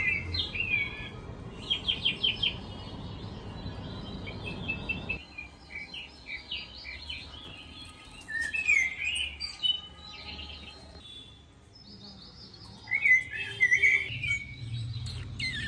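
Small birds chirping and twittering in short bursts, with quick trills, loudest about thirteen seconds in. Under them is a low background rumble that drops away about five seconds in.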